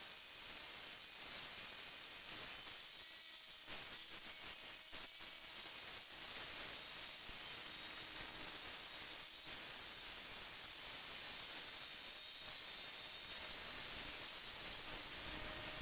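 Angle grinder with a cutting disc, guided along a rail, cutting through thin galvanized sheet steel. It makes a steady hissing grind with a high whine on top.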